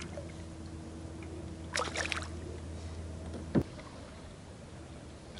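A small hooked bass splashing at the water's surface beside a kayak, with a short burst of splashing about two seconds in. About three and a half seconds in comes a single sharp knock, and a low background hum stops at the same moment.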